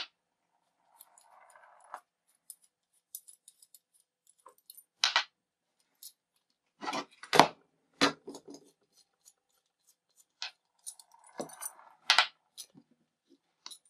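Steel hex screws being taken out of a brass pipe-tapping saddle clamp and set down on a table: scattered metallic clicks and clinks, with two brief stretches of soft rasping, one near the start and one near the end.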